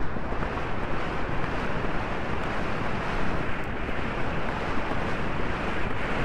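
Wind rushing over a helmet-camera microphone at a gallop: a steady, even roar of wind noise.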